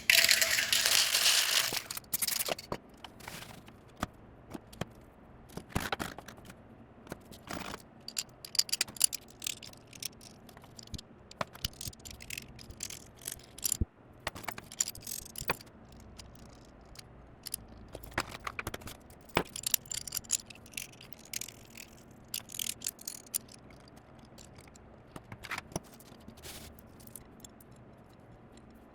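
Small hard objects being handled: irregular clinks, taps and scrapes. A louder scraping, rustling burst comes in the first two seconds.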